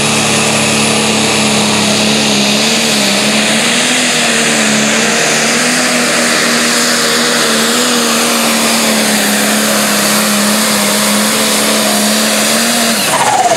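International 966 Light Pro Stock pulling tractor's turbocharged diesel engine running flat out as it drags the sled, a steady loud note whose pitch wavers slightly. The engine drops off suddenly near the end as the pull finishes.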